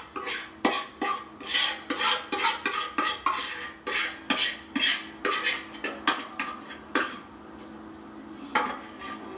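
A utensil scraping and knocking against a mixing bowl as thick cornbread batter is poured and scraped out into a baking pan. The strokes come about two a second and thin out near the end.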